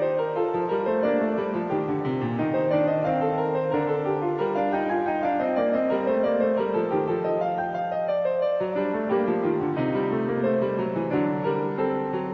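Slow piano music, with held low notes changing every couple of seconds beneath a melody.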